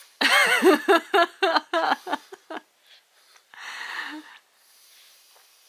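An adult laughing in a quick run of short bursts for about two and a half seconds, then a softer breathy sound near the middle.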